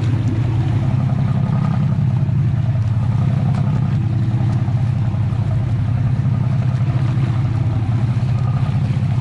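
Sportfishing boat's engine running with a steady low drone, with water rushing along the hull.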